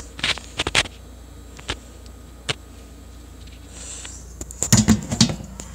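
Handling noise from a hand-held phone camera being moved and gripped: scattered clicks and light knocks, then a cluster of louder bumps near the end.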